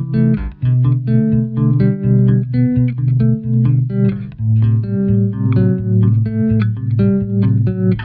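Electric bass, fingerpicked, played through a Boss TR-2 tremolo pedal that is switched on: a bass line of plucked notes, each note pulsing rapidly in volume from the tremolo.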